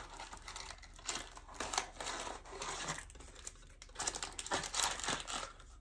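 Crinkling and tearing of a small cardboard snack box and its packaging being handled, its flap pulled open, in irregular rustling bursts.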